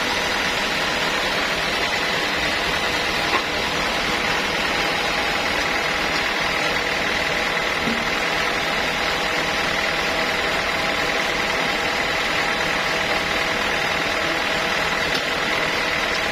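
Sawmill machinery running steadily, a constant mechanical drone with a faint high whine held at one pitch.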